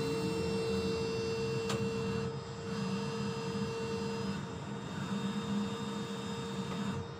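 Ship's provision crane running while lowering a load: a steady machine hum with a high, even whine that eases a little about four seconds in.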